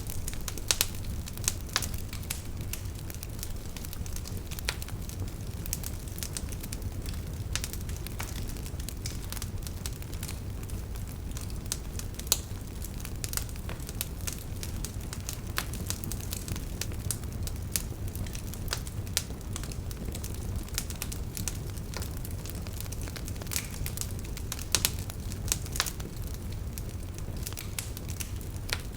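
Fire burning in a fireplace, crackling with frequent irregular sharp pops over a steady low rumble.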